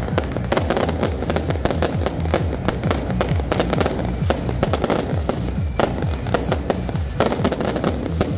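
A barrage of aerial fireworks bursting overhead: rapid, overlapping bangs and crackling, several a second without a break.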